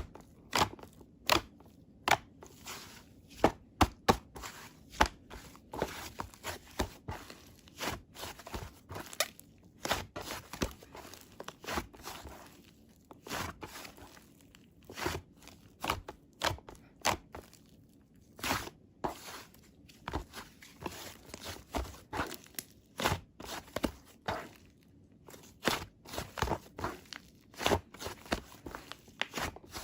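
Soft clay slime being squeezed, poked and pressed by hand, giving irregular sticky pops and clicks, several a second, with short pauses.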